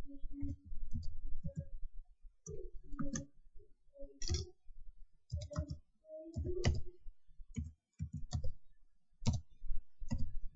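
Computer keyboard being typed on: irregular, uneven clicks of single keystrokes as an email address is entered.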